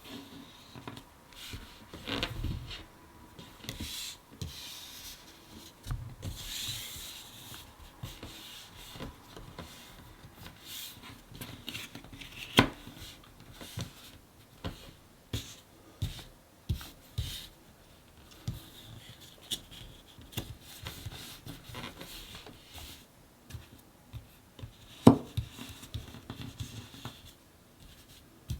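Thick cardboard jigsaw puzzle pieces being slid, rubbed and pressed into place on a table, with scattered light clicks and taps. Two sharper knocks stand out, about twelve seconds in and again near the end.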